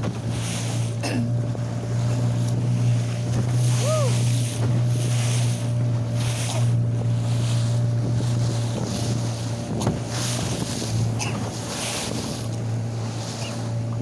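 A small boat's engine running at a steady speed, a continuous low drone, with wind buffeting the microphone and water rushing past the hull in uneven surges.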